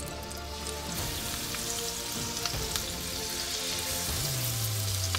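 Seasoned fish fillets frying in shallow oil on a griddle pan, a steady sizzle that builds about a second in as more fillets go down.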